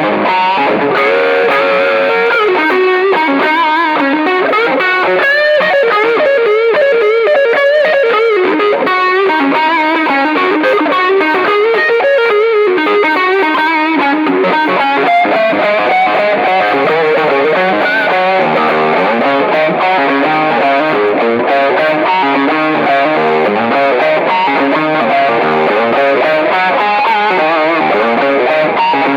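Westcreek Helios LP-style electric guitar played through an overdrive pedal with a little delay: continuous single-note lines with bends and vibrato.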